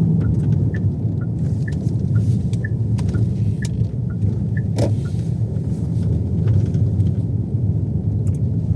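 Car interior while driving: a steady low road and engine rumble. Over it runs a light two-note ticking about twice a second, which stops near the end.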